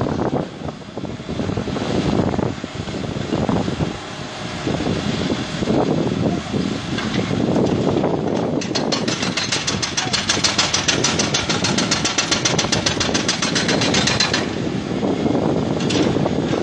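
Excavator working at the base of a concrete minaret: its engine runs with irregular knocks and scraping, then from about halfway through a rapid, even hammering goes on for about six seconds, a hydraulic breaker chiselling the concrete.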